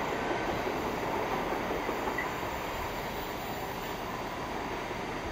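Freightliner Class 66 diesel locomotive, with its EMD two-stroke V12, running along the line hauling a cement train, a steady rumble of engine and wheels.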